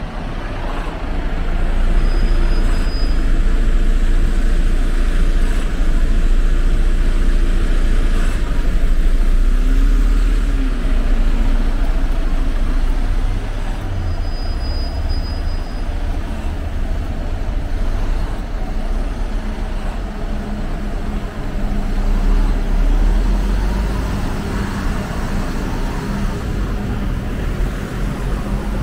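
Diesel engine rumble of an articulated Mercedes-Benz Citaro city bus pulling away and turning through an intersection, over steady street traffic. Two short high beeps come about 2 s and 14 s in.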